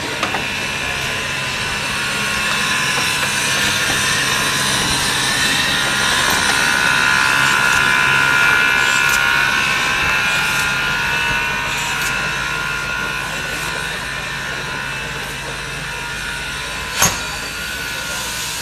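Standing Bosnian class 83 narrow-gauge steam locomotive 83-180, built 1946 by Đuro Đaković, hissing steam steadily, the hiss swelling towards the middle and easing off again over a faint low hum. One sharp knock near the end.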